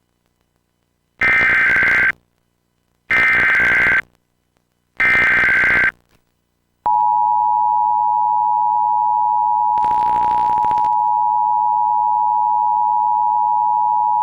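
Emergency Alert System test: three SAME header data bursts, each a harsh digital warble about a second long and about a second apart, then the steady two-tone EAS attention signal (853 and 960 Hz) starts about seven seconds in and holds, with a brief crackle of noise over it partway through.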